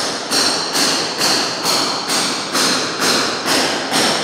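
Steady hammer blows, about two a second, each with a short metallic ring, as masonry is knocked out to remove a window frame.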